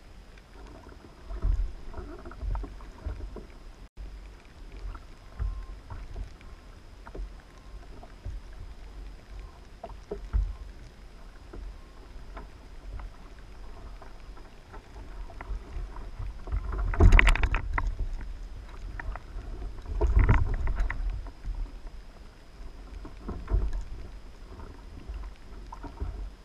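Sea water lapping against a plastic sit-on-top fishing kayak, with irregular low bumps from the rocking boat. Two louder surges of noise come about two-thirds of the way through, with a smaller one near the end.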